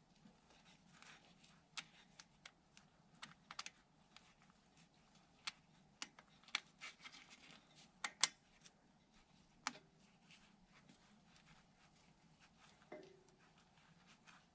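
Light, irregular metallic clicks and taps of hand tools and fittings as a hydraulic line is fitted, with a couple of short metallic rings, one about ten seconds in and one near the end.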